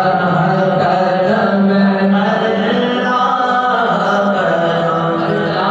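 A man singing an Islamic devotional naat into a handheld microphone, unaccompanied, in long held and ornamented vocal lines.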